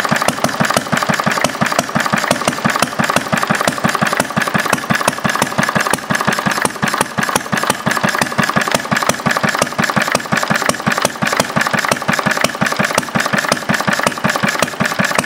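Single-cylinder Briggs & Stratton small engine with a clear acrylic cylinder head, running steadily: a fast, even train of firing pulses with no break.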